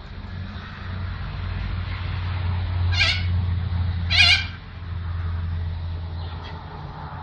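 Two harsh cockatoo screeches, about a second apart, the second louder, over a steady low rumble.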